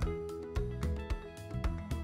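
Background music with a steady beat and pitched instrumental notes.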